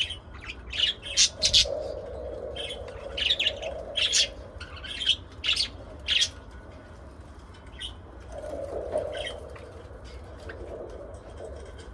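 Pet lovebirds and budgerigars chirping and squawking in short, sharp calls. The calls come thick and fast for the first six seconds or so, then thin out to a few scattered chirps.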